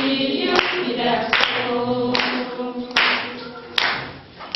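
A group of schoolchildren singing together unaccompanied, clapping in time on the beat a little more than once a second.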